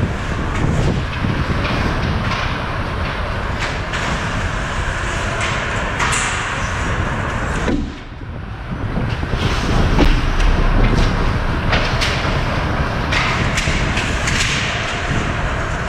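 Ice hockey game in play on the rink: a continuous rumble and hiss with repeated sharp clacks and thuds from sticks, puck and the boards.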